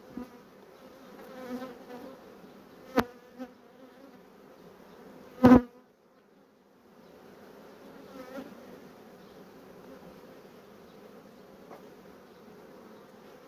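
Honeybees buzzing from an opened hive while a frame covered in bees is lifted out: a low, wavering hum. There is a sharp click about three seconds in and a louder knock a couple of seconds later, after which the hum briefly drops away.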